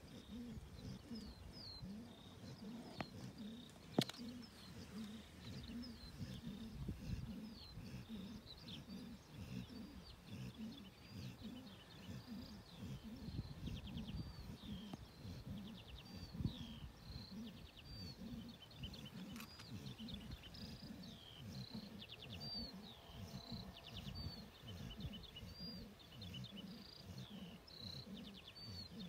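A Neapolitan mastiff cross dog snoring, a low rumble going on and on, while small birds chirp over it. A single sharp click about four seconds in.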